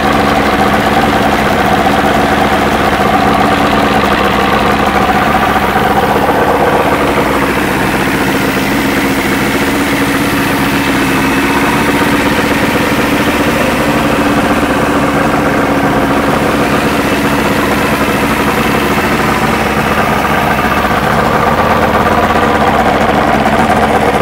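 OMC V-6 two-stroke outboard running at a steady idle with its cowling off.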